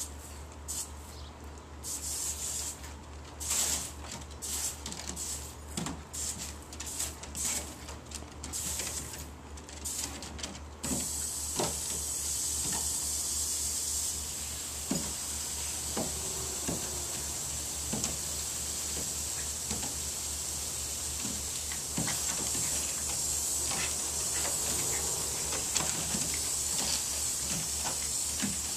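Water spraying from a garden hose pistol-grip nozzle: short spurts of hiss for the first eleven seconds or so, then a steady hiss of continuous spray.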